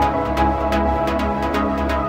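Electronic background music with a steady beat and a bass line.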